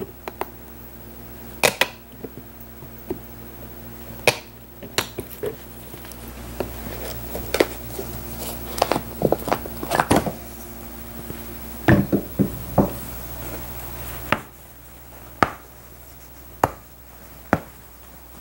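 Irregular sharp clicks and snaps of pliers pulling finish nails and tacks out through an old upholstered chair's outside panel, over a steady low hum.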